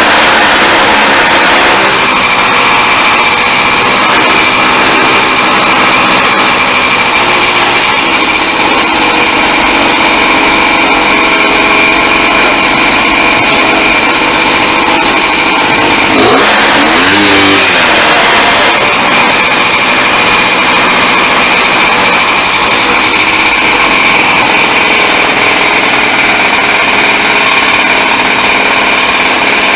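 Honda Dio AF18 scooter's small two-stroke engine running steadily after its no-start was repaired, with one brief rev up and back down about sixteen seconds in.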